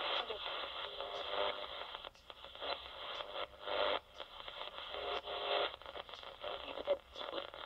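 Shortwave AM receiver being tuned upward near 10 MHz: hiss and static through its speaker, with brief snatches of stations as the dial passes them and short dropouts in between.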